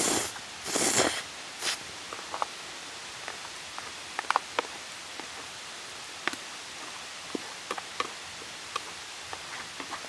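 Two brief rustling swishes right at the start, then scattered light clicks and taps of hands handling things close by, over a steady background hiss.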